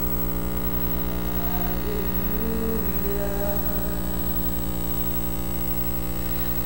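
Loud, steady electrical mains hum in the sound system's feed, with faint singing voices wavering over it in the middle and again near the end.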